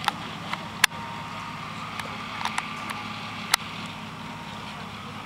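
A steady low motor hum, with a few sharp clicks scattered through it; the loudest click comes just under a second in.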